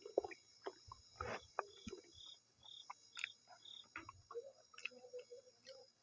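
Close-up chewing and wet mouth clicks and smacks while eating soft maize dhido with nettle soup, with a short row of faint high chirps in the middle.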